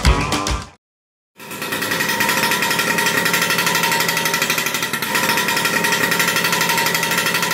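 A classic Vespa-style scooter's small engine running steadily, with a rapid even pulsing. It starts sharply about a second and a half in, after the music cuts out.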